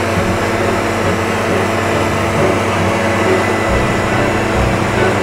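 Gas-powered backpack leaf blowers running steadily, a loud even rush of air over a low engine hum. The noise cuts in abruptly at the start.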